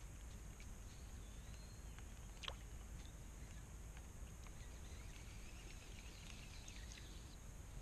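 Quiet outdoor ambience with faint bird chirps and a single sharp click about two and a half seconds in.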